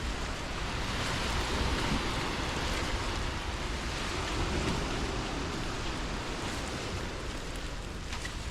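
Heavy rain falling steadily, with surf washing in the background.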